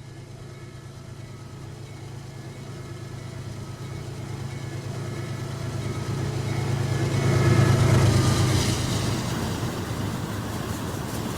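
CSX container train passing: the diesel locomotive's engine hum grows steadily louder as it approaches and is loudest about eight seconds in as it goes by, then gives way to the steady rolling noise of the container cars on the rails, with faint wheel clicks near the end.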